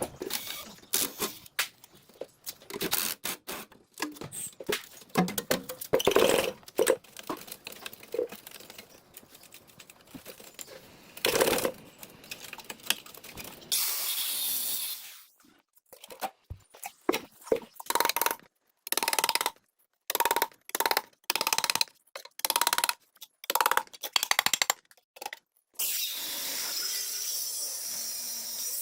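Hand tools working on the metal parts of an old generator set: irregular metal clinks, knocks and clattering. There are two stretches of steady hissing, one about midway and one near the end.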